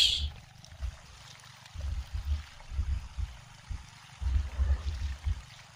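Water trickling and gurgling as a hose-fed pipe is jabbed up and down into wet ground to jet out soil and sink a tube well, with low thuds coming in bouts.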